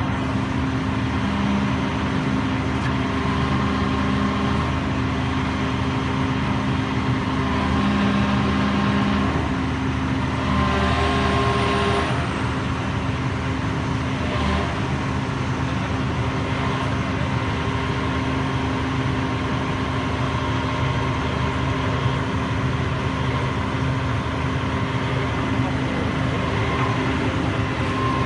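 Hydraulic excavator's diesel engine and hydraulic pumps running steadily as the long-reach demolition boom and shear are worked, a continuous hum with a constant whine. The engine note rises briefly twice, about a third of the way in.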